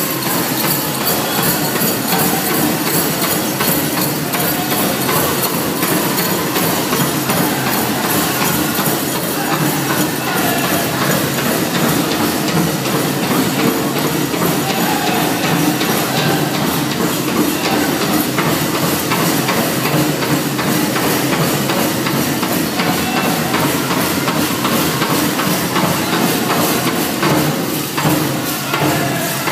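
Pow wow drum beaten in a steady, even beat, with the jingling and rustle of many dancers' bells and regalia and the hubbub of a large crowd.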